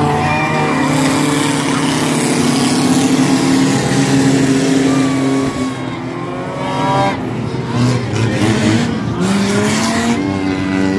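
Several demolition derby cars' engines revving at once, loud and overlapping, their pitches rising and falling as the cars accelerate and slow.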